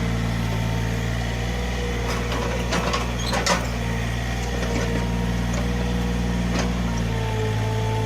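Mini excavator's diesel engine running steadily, with a faint wavering higher whine over the engine note. A few sharp knocks or clicks come in the middle, and one more follows a few seconds later.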